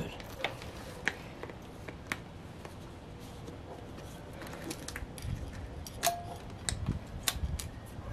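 Irregular small clicks and taps, a dozen or so, with a few soft low thumps near the middle: hands unscrewing and handling the small plastic battery door of a tachometer.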